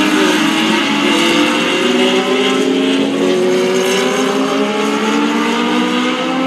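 A pack of Legends race cars, each with a Yamaha motorcycle engine, running at speed around an oval. Several engines whine together at different pitches, some rising and falling as the cars pass.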